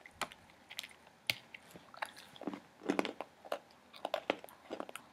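An Oreo sandwich cookie being bitten into and chewed close to the microphone: a sharp crunch, then small irregular crunches and clicks of chewing.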